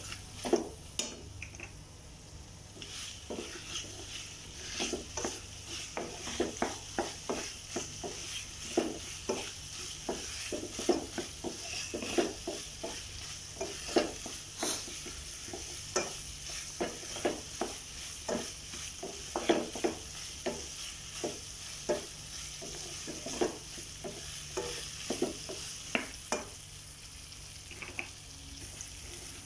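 A spatula scraping and knocking against the pan in irregular strokes as chicken pieces in thick pepper masala are stirred, over a steady sizzle of the chicken frying.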